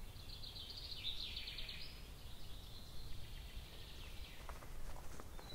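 Woodland ambience: a steady low rumble of wind, with a small bird's high, fast trill over the first two seconds that thins into a long high note. A few faint clicks come near the end.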